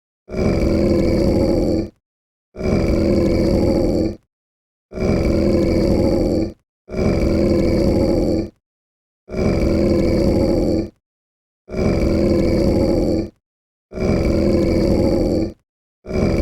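Hellhound-style monster growl sound effect, a dog- or wolf-like creature growl, played over and over: seven near-identical growls of about a second and a half, each cut off into dead silence, with an eighth starting near the end.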